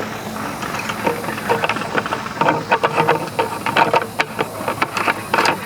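Irregular clicks and rattles of the fuel can, funnel and filler cap being handled after refuelling, over a steady low hum. The clicks come thickest in the second half.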